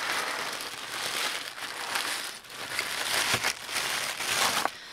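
Packaging crinkling and rustling as hands rummage through a subscription box's contents, with a brief lull about halfway and a short break near the end.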